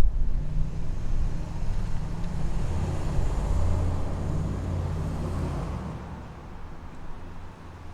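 Road traffic: a low rumble from a passing vehicle that builds to a peak about halfway through and then fades away near the end.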